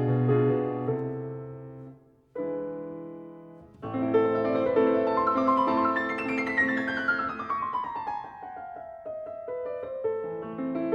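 Background piano music: sustained chords, with a run of notes falling in pitch about midway.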